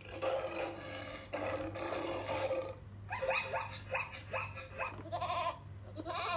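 Recorded animal calls played through a LeapFrog 100 Animals touch-book's small speaker as its lion and then elephant pictures are pressed. First comes a long rough roar-like call, then a quick series of short pitched calls about three a second, then a couple of short bursts near the end.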